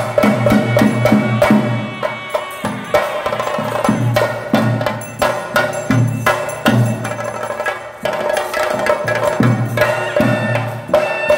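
Traditional Kerala theyyam percussion: chenda drums beaten in fast, dense strokes with hand cymbals ringing over them. The drumming eases briefly near the middle and again a little past halfway, then picks up.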